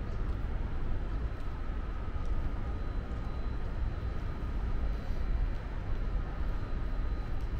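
Steady low rumble of outdoor city background noise, with a faint steady high-pitched tone above it.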